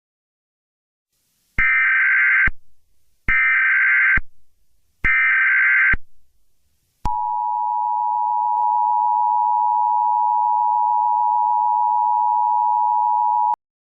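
Emergency Alert System tones: three short bursts of SAME header data, about a second each with a second's gap between them. These are followed by the two-tone EAS attention signal, held steady for about six and a half seconds, which announces that an emergency bulletin follows.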